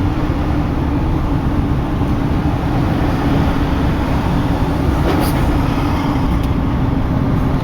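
Steady engine and road noise inside a pickup truck's cab while driving, a low rumble with a constant hum.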